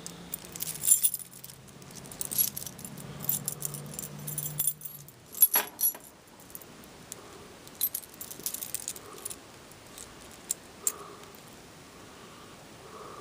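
Set of metal warded lock picks jangling and clicking together like keys on a ring. The sharp clinks come in dense clusters through the first six seconds and are scattered after that. A low steady hum runs underneath until about five seconds in.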